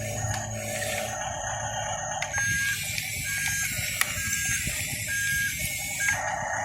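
A short electronic beep repeating about once a second, five beeps in all, like a reversing warning beeper, over a steady low motor hum.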